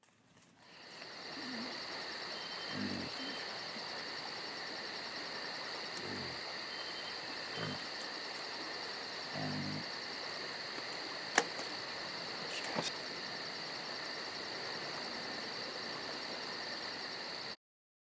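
Steady chorus of insects trilling, with a fast even pulse in the highest pitches. A few soft low thumps in the first half, and two sharp clicks a little past the middle.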